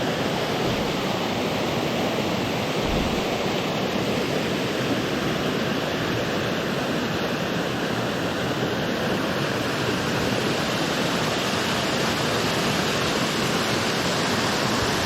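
Small creek waterfall, water falling and rushing in a steady, even hiss that cuts off suddenly at the end.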